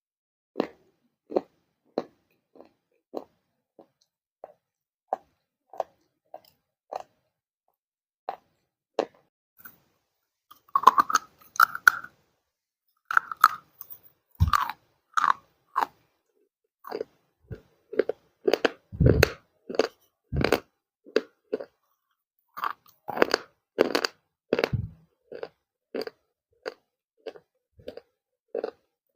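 A person biting and chewing crunchy baked clay, giving dry crunches. These come sparsely, about one a second, at first, then turn faster and louder from about a third of the way in.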